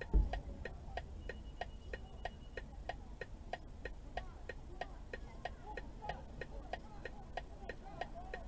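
A car's hazard-light flasher ticking steadily, about three clicks a second. A single low thump comes just after the start, and faint voices can be heard in the second half.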